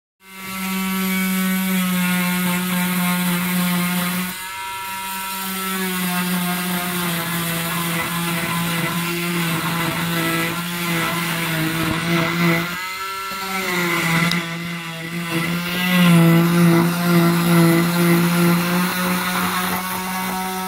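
Stryker oscillating cast saw running with a steady electric whine as it cuts through a forearm cast, its pitch wavering as the blade is pressed into the cast. The whine dips briefly about four seconds in and again near the middle.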